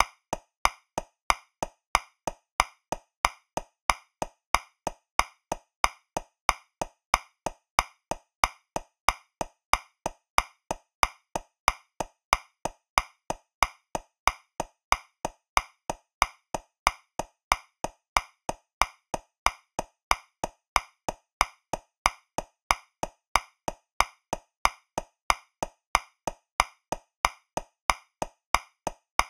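Metronome clicking steadily at 185 beats per minute in 2/4, about three clicks a second, with every other click accented to mark the first beat of each bar.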